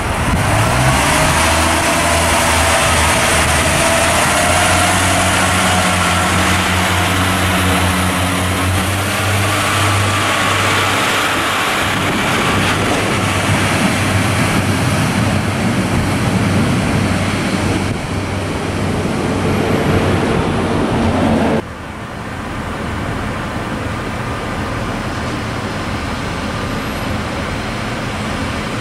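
British Rail Class 142 Pacer diesel multiple unit pulling away from the platform: its underfloor diesel engine runs under load, rising in pitch as the train accelerates, then gives way to an even running noise as it leaves. About two-thirds of the way through, the sound cuts to a quieter steady noise of another Pacer approaching in the distance.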